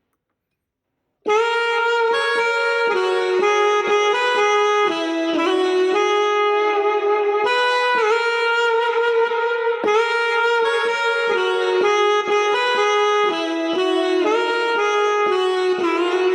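Korg Pa series arranger keyboard playing a saxophone voice: a single-note melody line of connected notes that changes pitch often, starting after about a second of silence.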